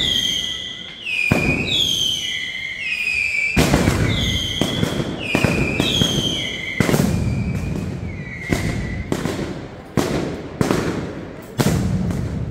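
Mascletà firecrackers going off in a rhythmic series of sharp bangs that come faster toward the end. Over the first two thirds, whistling fireworks give a run of short whistles, each falling in pitch.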